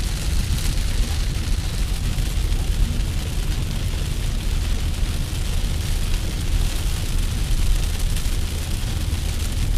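Steady rain falling at night, a continuous even hiss over a deep, constant rumble.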